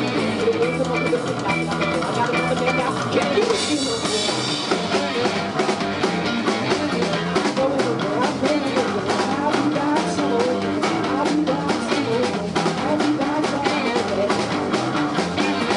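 Live rock band playing a song, with drum kit and guitar keeping a steady beat.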